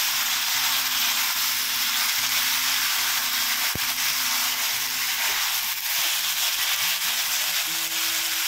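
Cubed brinjal and potato sizzling in hot oil in a stainless steel kadhai while being stirred and sautéed with a silicone spatula: a steady frying hiss.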